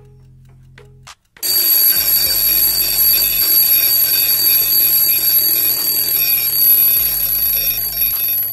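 Alarm of a French carriage clock from about 1890–1910 going off about a second and a half in: its hammer rings the bell continuously for about seven seconds, then stops and the bell rings away. Before it, the clock ticks faintly.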